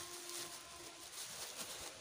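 Faint rustling and handling noise of plastic bags and a bait bucket being worked by hand, with a couple of faint brief tones in the background.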